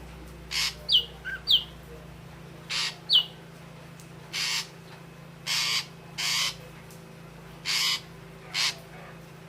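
Ashy drongo calling: a few sharp, quickly falling whistles in the first three seconds, and a string of short harsh notes about once a second.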